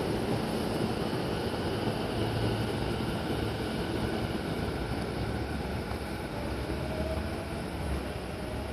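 Sotetsu 11000 series electric train running, a steady rumble slowly fading, with a faint rising whine in the second half.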